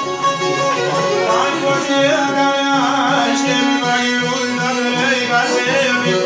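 Live Albanian folk music on violin, accordion and long-necked plucked lutes, playing steadily in an ensemble.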